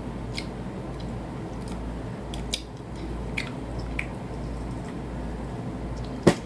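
Chewing and mouth sounds of someone eating chicken: scattered soft, wet clicks and squishes over a steady low hum, with one sharp click near the end.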